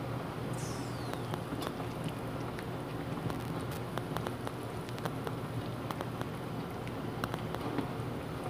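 Pot of chicken and papaya soup simmering on the stove: a steady bubbling with many small irregular pops. A brief high falling squeak sounds about half a second in.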